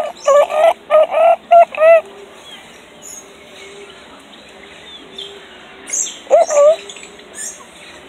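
A bird calling loudly: a quick run of about six short, hooked calls in the first two seconds, then two more about six seconds in, with faint high chirps of other birds in the background.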